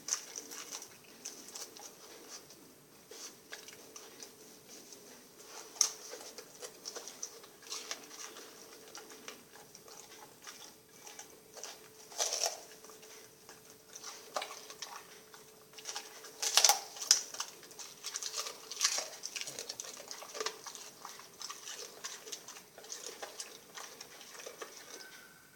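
A Rottweiler eating sardines: irregular chewing and smacking clicks, with louder bursts about twelve and seventeen seconds in.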